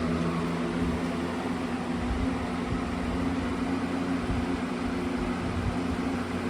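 2022 CoolMaster/Aerospeed 20-inch box fan (model PBX100) running on its high setting: a steady motor hum under the rush of air from the blades.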